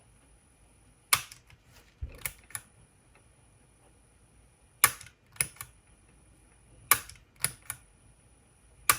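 Sony WM-DD33 Walkman's transport keys pressed repeatedly: about ten sharp mechanical clicks, some in quick pairs or threes, as the mechanism is switched into play and stopped again, with a faint steady high whine between some of the clicks. This is a check that play mode now engages after the idler replacement.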